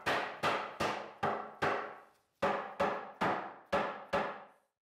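A fist pounding a solid-wood tabletop down onto the tenons of the table base: about ten hollow wooden thumps at an even beat, each ringing briefly, with a short pause about two seconds in.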